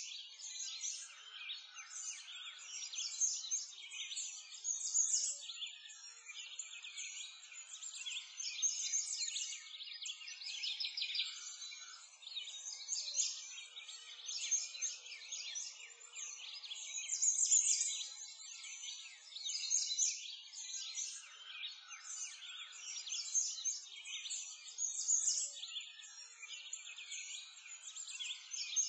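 Birdsong ambience: a dense chorus of many small birds chirping and twittering at once, all high-pitched with no low sounds beneath.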